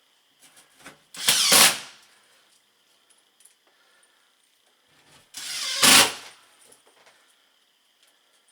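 Power drill run in two short bursts, about four seconds apart, each spinning up to a peak and stopping.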